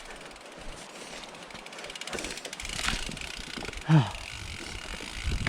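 Mountain bike rolling down a steep, muddy trail: tyre noise on dirt and rattle from the bike, growing louder with a low rumble after about two and a half seconds. About four seconds in, the rider lets out one short grunt that falls in pitch.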